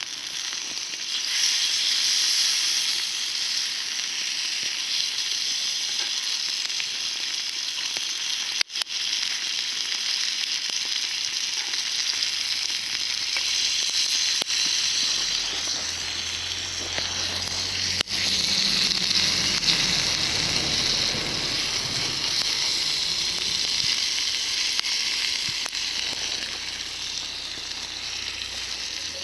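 Food sizzling steadily as it fries in a pan, with two momentary breaks, about a third and about two-thirds of the way through.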